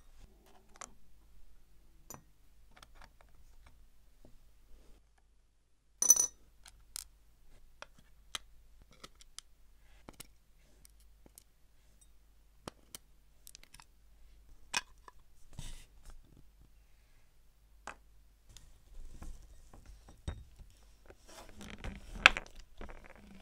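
Small metal tools and watch parts clicking and tapping on a watchmaker's bench, in irregular single clicks, the sharpest about six seconds in, with a short patch of duller knocks and handling rustle near the end.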